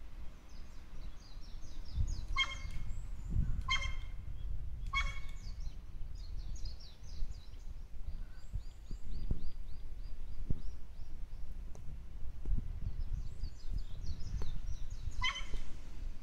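Wild crow giving a dog-like 'wan wan wan' bark: three short, harsh calls about a second apart, then another single call near the end. The crow has learned the call by imitating a neighbourhood dog's barking.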